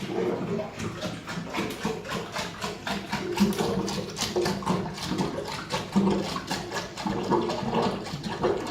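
Water gurgling and bubbling in the plumbing in a rapid, irregular stream of glugs.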